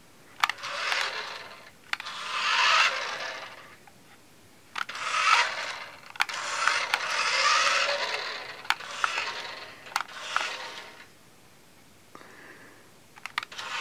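Toy RC car's small electric motor and tyres whirring across the floor in three drives of a few seconds each, starting and stopping as the remote's levers are pressed, with sharp clicks scattered among them.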